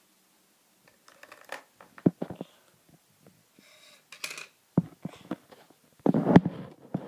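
Small plastic toy pet figures and toy furniture being handled on a dresser top: scattered light taps, clicks and rustles, with a louder cluster of knocks and rustling about six seconds in.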